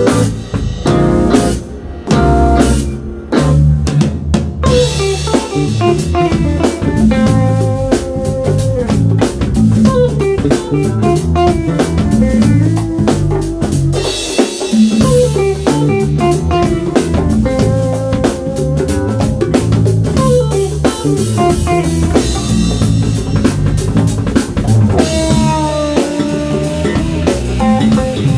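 A live band plays an instrumental passage: an electric guitar lead with bent notes over electric bass, a drum kit and hand percussion. The first few seconds are short, choppy band hits with gaps between them.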